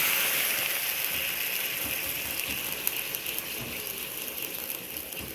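Food frying in hot oil in a pan: a loud sizzle with crackling pops that slowly dies down.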